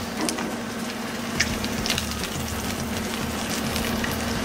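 Steak searing in hot olive oil in a cast iron skillet: a steady sizzle with a few sharp crackles of spattering oil.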